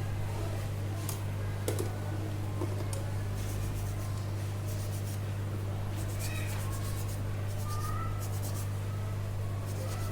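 Steady low hum of a hot-air SMD rework station left running to heat up, with scattered light clicks of small tools handling the phone, the sharpest a little under two seconds in.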